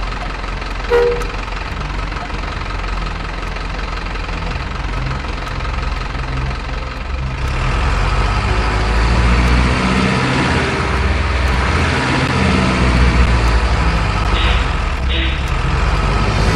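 Simulated diesel truck engine sound of radio-controlled model dump trucks driving through mud, its pitch stepping up and down and growing louder about seven and a half seconds in. Two short high-pitched blips come near the end.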